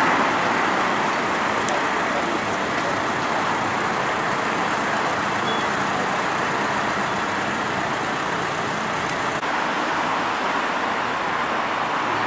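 Road traffic on a town street: cars passing, a steady noise.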